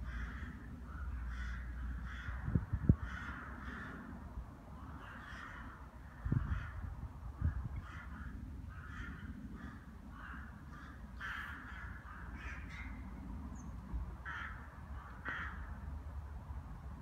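A flock of rooks cawing, many short harsh calls overlapping and following each other irregularly, as the birds gather at food. A few low thumps on the microphone, about three and six seconds in.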